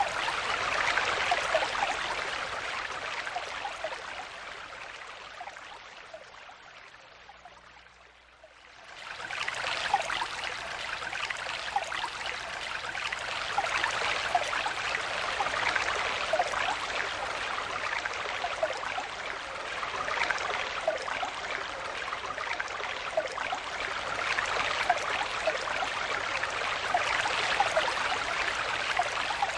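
A flowing stream, its water running steadily with small gurgles. It fades down over several seconds, then swells back up quickly about nine seconds in.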